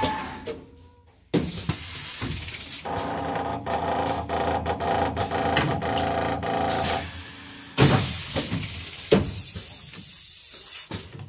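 Pneumatic leak- and flow-test rig at work: compressed air hissing from its valves and cylinders, with clicks and knocks of actuators. A steady machine hum runs from about three to seven seconds in, and a fresh loud burst of hiss comes in near eight seconds.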